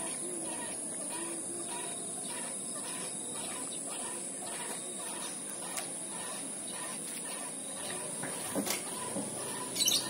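Rural evening field ambience: a steady high-pitched drone over a faint hiss, with a few short bird calls near the end, like those of chickens.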